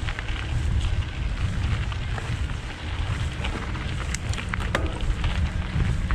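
Wind rumbling on an action camera's microphone while mountain biking, with tyres running over a dirt trail and the bike rattling in scattered sharp clicks, a few of them louder around four to five seconds in.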